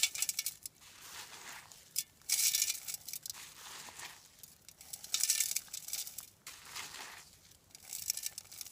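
Dry sandy dirt being scooped up and thrown onto a small smoky twig fire to smother it, in four scraping bursts about two and a half seconds apart.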